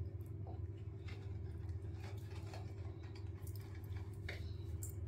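Faint, scattered light splashes and drips of bath water over a steady low hum.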